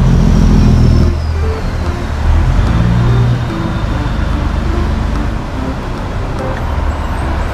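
Road traffic on a wet highway: a vehicle passes close in the first second with a loud low rumble, then steadier traffic and tyre noise, with music underneath.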